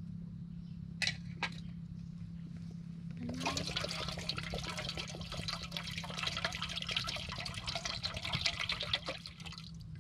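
Coconut water poured into a container, splashing for about six seconds from about three seconds in, after two short knocks. A steady low hum runs underneath.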